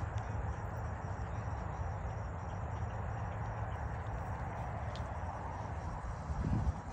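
Crickets chirping in a steady, evenly pulsed high trill over a constant low background rumble, with a brief louder low rustle near the end.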